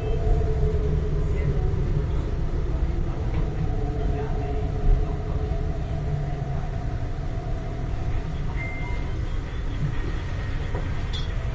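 Korean-built MTR East Rail Line R-Train electric multiple unit heard from inside the carriage as it slows into a platform. A steady low running rumble carries a faint motor whine that falls slightly in pitch, and there is a brief high hiss near the end.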